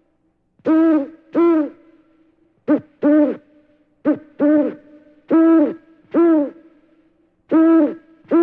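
A bird calling over and over: about ten short, pitched hoot-like calls, mostly in pairs, each rising and then falling in pitch.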